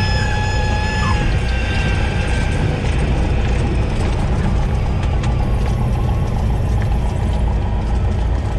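Cockpit noise of a Cessna 172S on its landing rollout: the four-cylinder Lycoming engine idling with a steady low rumble, mixed with wind and runway noise as the plane slows. A thin high tone sounds for about the first second.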